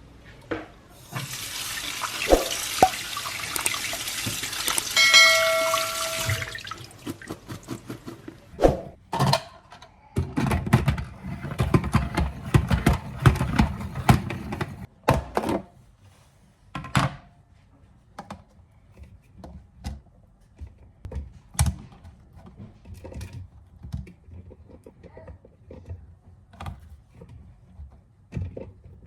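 A kitchen sink tap runs for about five seconds and then stops, with a brief steady tone just before it shuts off. After that come knocks and a rustling clatter of produce and containers being handled, then scattered light knocks.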